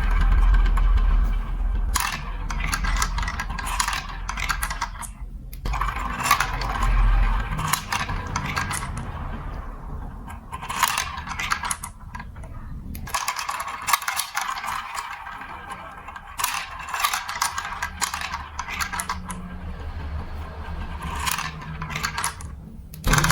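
Marbles rolling and clattering through plastic building-block marble-run track, coming in bursts of rapid clicks and rattles.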